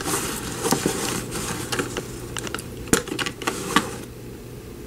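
Handling noise from a cardboard box and glass nail polish bottles: irregular small clicks and taps with paper rustling, busiest in the first second and a half.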